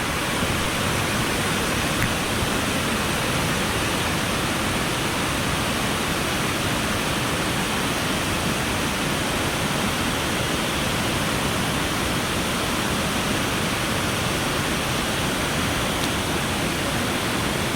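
Steady rush of flowing water: an even hiss across low and high pitches that holds a constant level without swells or breaks.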